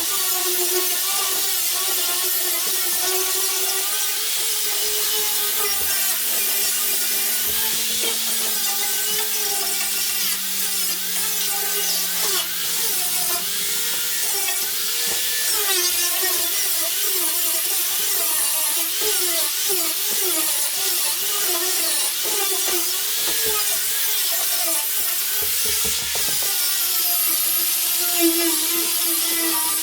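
High-speed power tool running continuously, its whine wavering up and down in pitch as it is pressed into the work, over a steady hiss.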